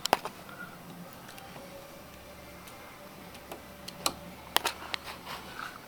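Sharp plastic clicks and knocks from a small homemade toy car chassis being handled on a wooden table: a couple right at the start, then a quick cluster about four to five and a half seconds in.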